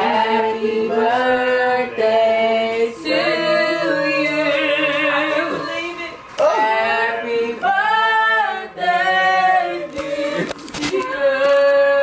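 A group of men and women singing together unaccompanied, with long held notes and vibrato.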